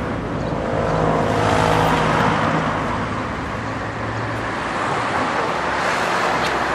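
Street traffic: a car's engine and tyres going past, swelling about two seconds in, with a steady low engine hum that fades out after about four and a half seconds.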